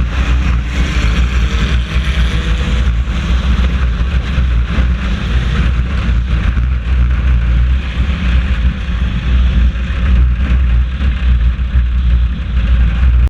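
Four-cylinder race car's engine running steadily with road and wind noise, heard from inside the cockpit: a heavy low rumble under a steady rushing hiss.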